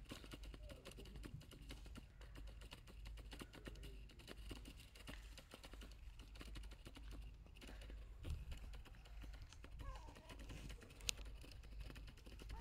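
Faint crackling and rustling of dry leaf litter underfoot: a dense patter of small clicks, with one sharp click about eleven seconds in.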